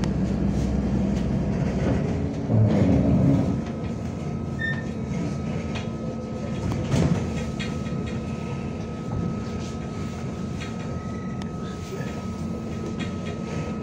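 Cabin noise of a MAZ-105 articulated city bus under way: engine and drivetrain rumble with road noise and small rattles. The low rumble swells briefly about three seconds in, and a faint steady whine runs from about four seconds in until near the end.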